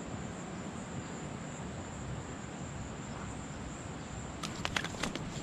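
A steady outdoor rush with a thin, steady high tone; about four and a half seconds in, a quick run of sharp clicks and ticks as a small tarpon is unhooked by hand.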